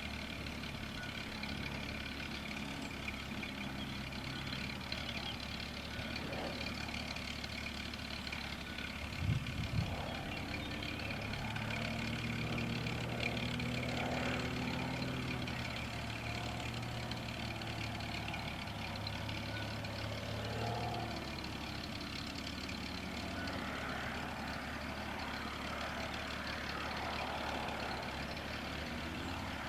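Cessna Agwagon topdressing aircraft's piston engine droning at a distance over a steady outdoor hum, its tone strongest through the middle. A couple of short knocks about nine seconds in.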